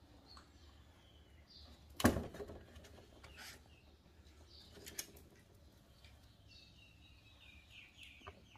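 Small birds chirping in short, falling calls on and off, with one loud sharp knock about two seconds in and smaller clicks near five seconds and near the end.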